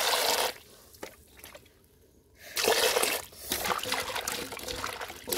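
Water pouring in a stream into a metal pot of sliced green eggplant, stopping about half a second in. After a short pause, hands swish and rub the eggplant pieces in the water, sloshing and splashing, to wash them.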